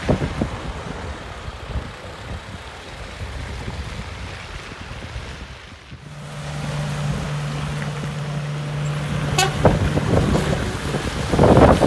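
Heavy trucks running on a slushy road, snowploughs among them. A steady low hum sets in about halfway, and a louder burst of sound comes near the end.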